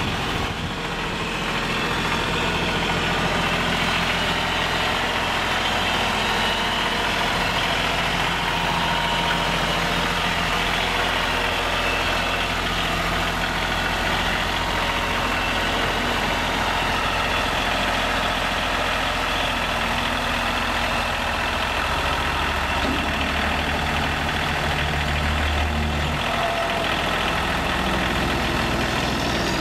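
Ford 1520 compact tractor's three-cylinder diesel engine running steadily as the tractor is driven. Its low note grows stronger for a few seconds near the end.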